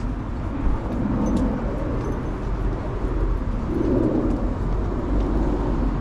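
Outdoor street ambience: a steady low rumble of traffic, with a few low cooing calls, likely pigeons, about a second in and again around four and five seconds.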